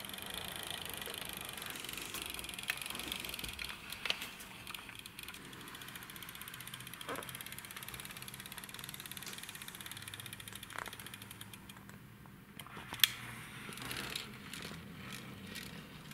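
Die-cast toy pickup truck being rolled by hand across a wooden floor: a steady rolling noise from its wheels on the boards, with a few small clicks and one sharp click about 13 seconds in.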